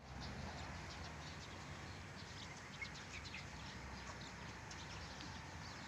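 Small birds chirping in many short, high notes over a steady low background noise.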